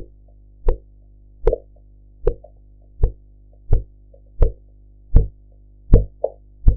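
Korotkoff sounds from a blood pressure cuff, amplified through a stethoscope: sharp, regular thumps at heartbeat pace, about four every three seconds, over a steady low hum. They are the pulse of blood forcing through the partly compressed brachial artery while the deflating cuff's pressure lies between systolic and diastolic.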